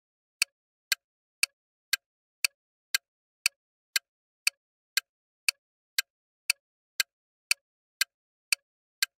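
Countdown timer sound effect: a clock-like tick repeating evenly twice a second, about eighteen ticks in all.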